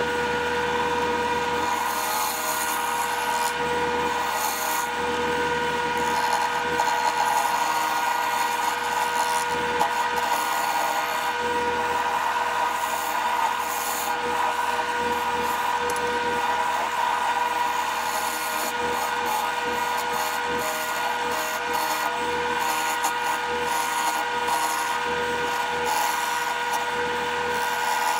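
Wood lathe running with a steady hum while a turning tool cuts a spinning heart-shaped cherry blank, an uneven scraping and rubbing of steel on wood that starts about two seconds in.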